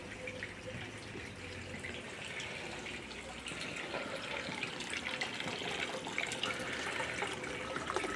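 Water trickling steadily, a continuous splashing noise that grows a little louder toward the end.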